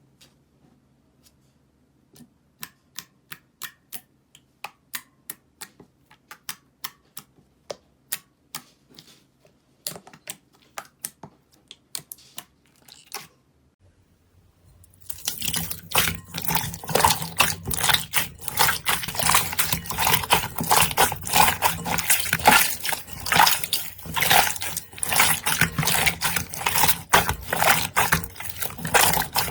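Slime being handled close to the microphone: sparse sharp sticky clicks and pops, a few a second, then about halfway through a louder, dense stream of crackling clicks as the slime is squeezed and worked.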